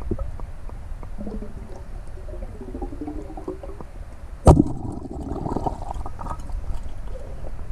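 Underwater sound: a steady low water noise with a few wavering tones, then one sharp, loud crack about halfway through as a speargun fires, followed by scattered clicks.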